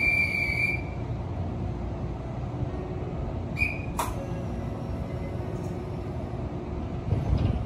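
Shin-Keisei N800-series electric train standing at the platform, its equipment giving a steady low hum. A high steady tone stops about a second in, and a short high beep with a sharp click comes a few seconds later.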